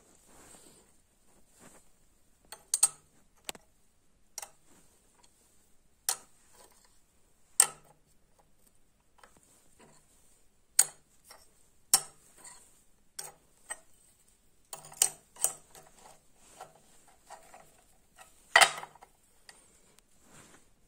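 Small steel bars clinking and knocking on a steel worktable as they are set down and shifted by hand, laid out for a mosaic damascus billet. Irregular single clicks a second or so apart, with the loudest knock near the end.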